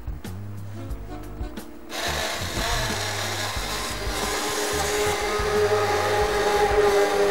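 A hand-held stick blender is switched on about two seconds in and runs steadily, puréeing a pot of mushroom and cream soup; from about five seconds in its motor settles into a steady whine. Background music with a bass line plays underneath.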